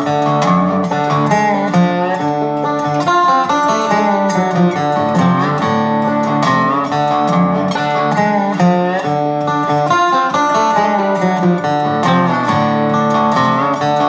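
Background music played on plucked string instruments, acoustic guitar to the fore.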